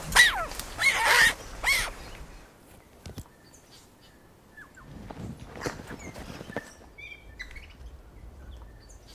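An animal giving a quick series of loud calls, each a curved cry that falls in pitch, about two a second, which stop about two seconds in. Faint short bird chirps, a single knock and some rustling follow.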